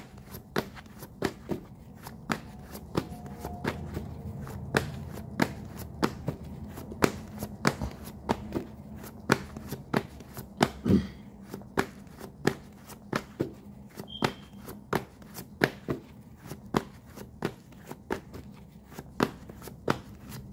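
Tarot deck being shuffled by hand: a steady run of sharp card snaps and taps, about two or three a second.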